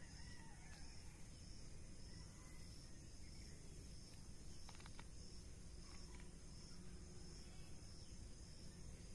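Quiet rural ambience: a steady, high, pulsing insect trill, with a few faint crackles of dry straw as mushrooms are pulled from a straw heap.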